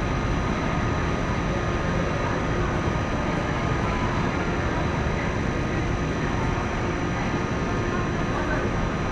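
Steady ambience of a covered railway station platform beside stationary electric trains: an even rumble and hiss with a few faint steady whining tones over it.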